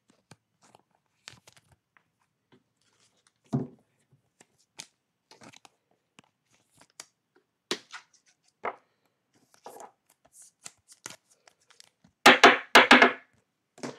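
Trading cards being handled and shuffled, with scattered soft rustles and clicks. Near the end, a loud crinkling tear of a cellophane card-pack wrapper.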